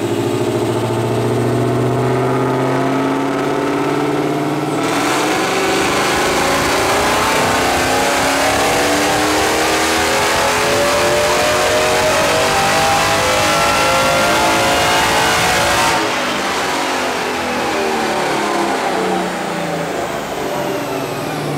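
Supercharged Mercedes-Benz E63 AMG's M156 6.2-litre V8 making a full-throttle run on a chassis dyno. It runs steadily for about five seconds, then climbs in pitch through the gear for about eleven seconds, then lets off so the revs fall. The exhaust is heard but the supercharger makes no whine at all.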